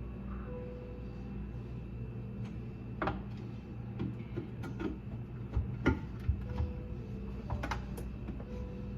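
Scattered light knocks and clicks of hands and tools handling the garbage disposal and its fittings under the sink, over a steady low hum.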